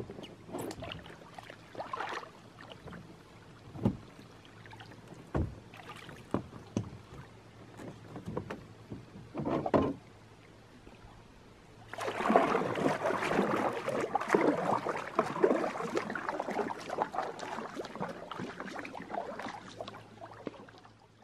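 Scattered knocks and bumps as a paddler steps into a loaded canoe at a rock shore and settles in. About twelve seconds in comes a denser spell of paddle strokes and water splashing against the canoe, which fades away near the end.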